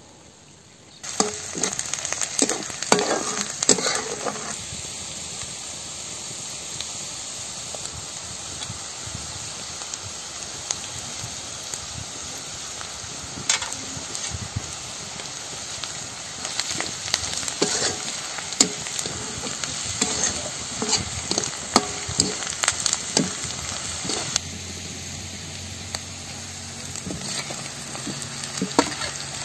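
Chopped onions and green chillies sizzling in hot oil in a kadai, with a spatula scraping and clinking against the pan as they are stirred. The sizzle starts about a second in.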